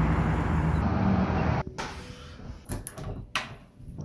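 Steady outdoor rumble and hiss that cuts off about one and a half seconds in, followed by a few short clicks and knocks from an old wooden door's handle and latch as it is opened.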